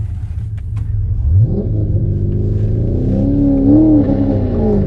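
A car's engine revving up and accelerating hard away about a second in, its pitch climbing and wavering as it pulls through the revs. Underneath is the steady drone of an engine idling.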